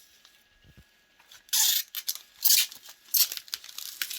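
Protective plastic film being peeled off a tempered glass PC case side panel: about four short, hissy ripping sounds, starting about a second and a half in.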